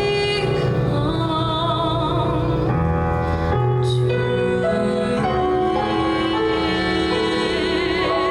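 Live concert music: a singer holding long notes with vibrato over instrumental accompaniment, changing notes every second or two.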